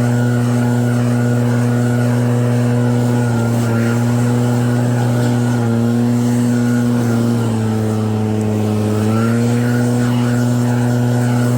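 Snowblower engine running steadily; about two-thirds of the way through, its pitch dips for a second or so, then comes back up.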